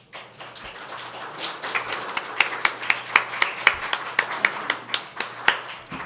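A small audience applauding, with single hand claps standing out in the crackle; it builds over the first second or two and dies away near the end.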